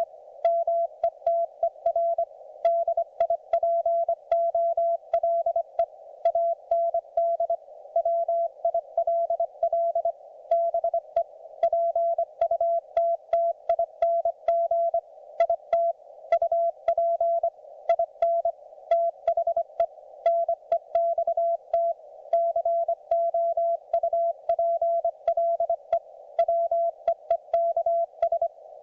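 Morse code (CW) on the 40-metre amateur band from a YouKits HB-1B QRP transceiver: a single mid-pitched tone keyed on and off in dots and dashes at a steady conversational pace. Between the elements a narrow hiss of band noise continues.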